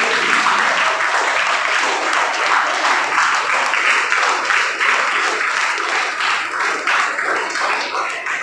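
Audience of schoolchildren applauding: dense, steady hand-clapping that eases slightly near the end.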